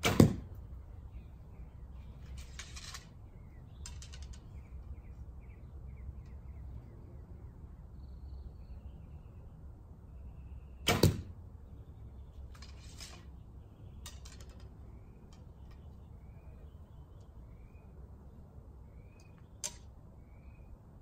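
Two shots from a recurve bow with an unsilenced string, about eleven seconds apart. Each is a sharp double crack a fraction of a second long: the string's release, then the arrow striking the target. Between the shots come quieter rustles of handling and drawing, and near the end a single click of an arrow being nocked.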